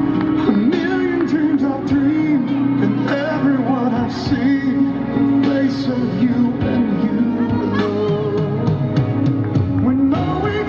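Pop song with a female singing voice over steady instrumental backing, played loud over a hall sound system.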